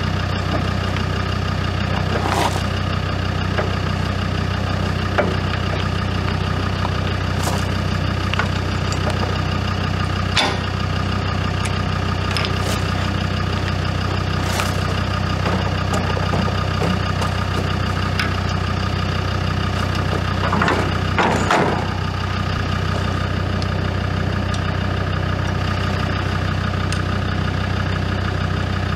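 Land Rover Discovery engine idling steadily. A few sharp metal clanks sound over it, about 2 s, 10 s and 21 s in, as the trailer hitch coupling is worked onto the tow ball.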